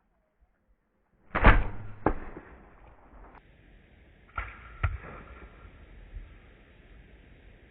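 A bow shot: the loud snap of the string's release, then a sharp smack as the arrow strikes the turkey about half a second later. The same pair of sounds comes a second time, a little quieter, a few seconds on.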